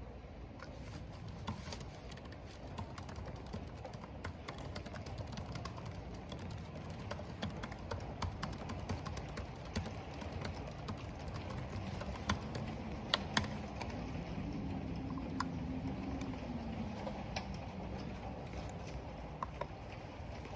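Typing on a computer keyboard, irregular key clicks with a few louder keystrokes, over a steady rumble of wind and rain.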